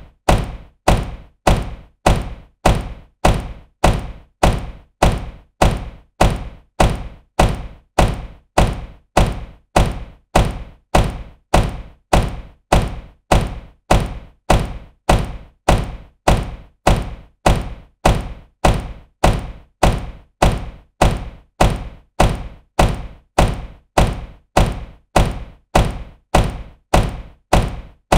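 A car door slamming shut with a heavy thunk, repeated at an even pace of about one and a half slams a second, each slam dying away quickly.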